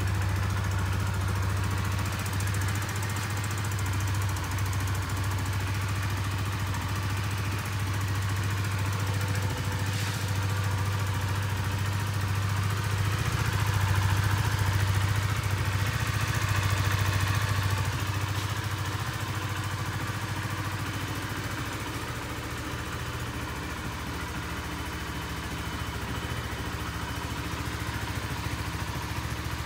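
Honda CBR125R's single-cylinder four-stroke engine idling steadily, a little louder about halfway through.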